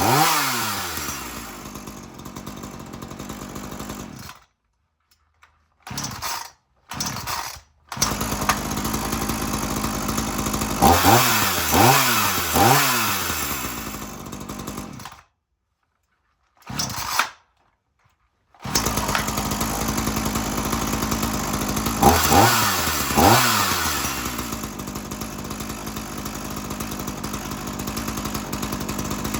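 Ryobi gas chainsaw's two-stroke engine idling and being revved in quick blips, about three at a time, three times over. Twice the sound drops out to dead silence for a few seconds.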